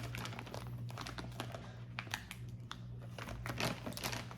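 Plastic candy pouch crinkling as it is handled, an irregular run of small crackles, over a steady low hum.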